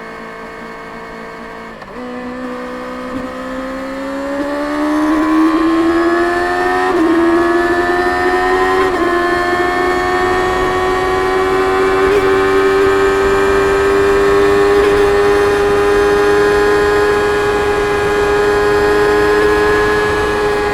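Stock 2024 Kawasaki Ninja ZX-6R's 636 cc inline-four through its stock exhaust. The engine drops suddenly to a lower, quieter note, picks up again about two seconds in, and rises in pitch over several seconds, with brief hitches along the way, before settling into a steady, slowly climbing cruise note.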